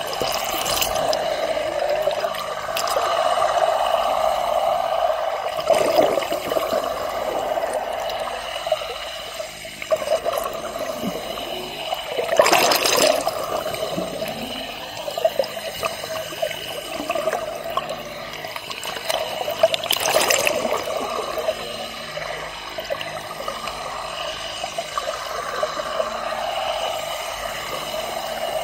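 Underwater water noise picked up by a submerged camera beneath a boat hull: a steady sloshing wash with a constant mid-pitched hum, broken by a few louder rushing surges, the strongest about halfway through.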